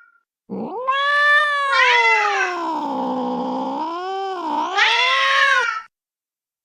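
Creature sound effect of a cat yowling: one long caterwaul starting about half a second in, its pitch sagging in the middle and rising again near the end before it cuts off suddenly.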